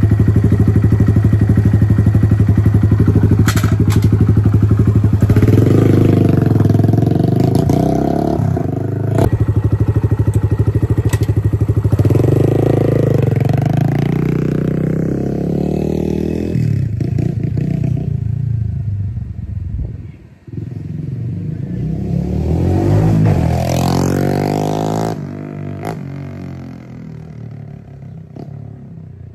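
Kawasaki KLX110 pit bike's small single-cylinder four-stroke engine through a BBR D3 full exhaust system, idling steadily, then revved up and down several times as the bike is ridden off. It fades away over the last few seconds.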